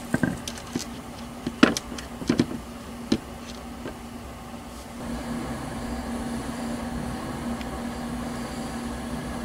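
Light knocks and taps as a small wooden sign on a chain is hung on a hook on a camper trailer's wall, several in the first three seconds. A steady hum runs underneath and grows stronger about halfway through.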